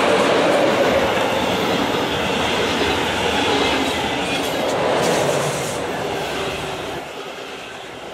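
Regional train of a DB class 143 electric locomotive and double-deck coaches passing close by, wheels rolling and clattering over the rails. The sound is loudest in the first five seconds and falls away about seven seconds in.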